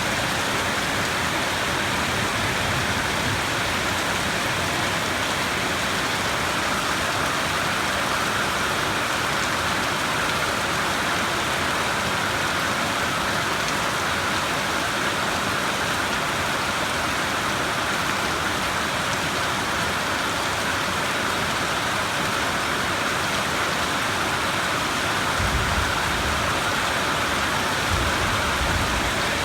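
Steady rain falling, with low rumbles of thunder near the end.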